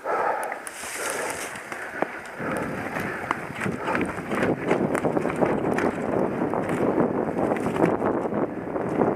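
Wind rushing over a helmet camera's microphone and a downhill mountain bike's tyres rolling over dirt and leaf litter, with sharp clicks and rattles from the bike. The noise grows louder and rougher about two and a half seconds in.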